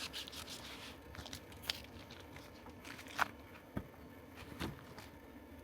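Faint, scattered taps and light rustling of food being handled on a cutting board, a few separate clicks a second or so apart.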